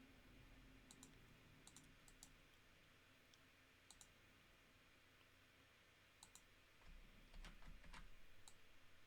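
Near silence with faint, scattered clicks of a computer mouse and keyboard, a few coming in quicker succession near the end.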